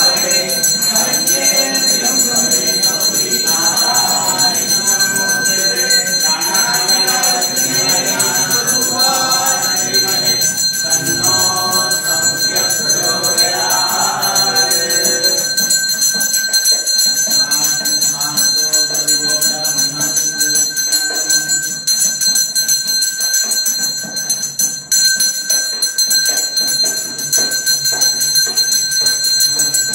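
Temple bells ringing continuously during an aarti lamp offering, a steady high ringing throughout. Voices are heard over the bells for roughly the first half.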